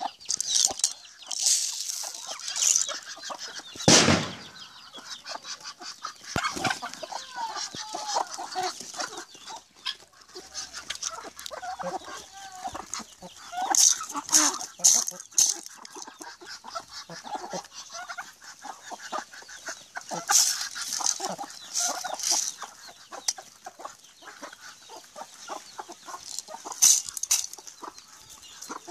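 Domestic chickens clucking and calling as a flock crowds round, with many quick taps and clicks as the birds peck at shelled corn in an aluminium pot. One louder knock comes about four seconds in.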